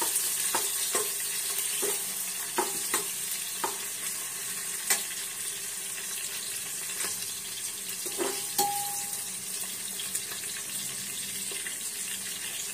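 Chopped onions sizzling in hot oil in a pressure cooker, a steady frying hiss. A steel slotted spoon clinks and scrapes against the pot as they are stirred, several times in the first few seconds and twice a little past halfway, one clink ringing briefly.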